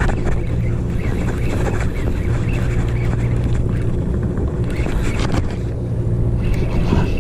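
Sportfishing boat's engine running steadily with a low, even drone.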